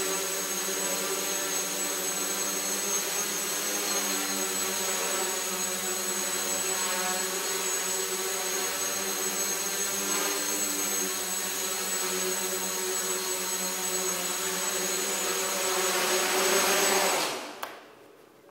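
Hexacopter's electric motors and propellers running steadily while it hovers, a steady buzzing whine with several pitches at once. It swells briefly near the end, then cuts off suddenly and spins down as the craft lands.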